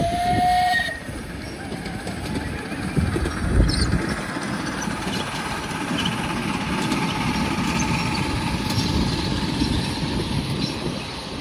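Tinkerbell-class 7.25-inch gauge miniature steam locomotive sounding a short whistle toot right at the start, then running past with its passenger cars clattering along the rails.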